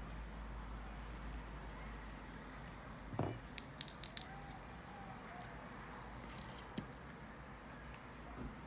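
A few light clicks and a soft knock from small plastic and metal laptop parts being handled during disassembly, over a faint steady low hum.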